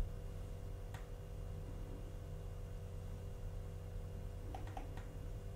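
Faint steady electrical mains hum with room tone, a faint click about a second in and a few soft ticks near the end.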